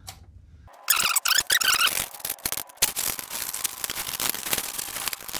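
An old transmission pan gasket being scraped off the metal mating surface: a scratchy, rasping scrape in quick irregular strokes with a few squeaks, starting about a second in.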